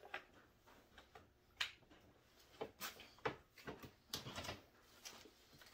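A few scattered light knocks and clicks as a Stihl MS 361 chainsaw is picked up and turned over on a workbench.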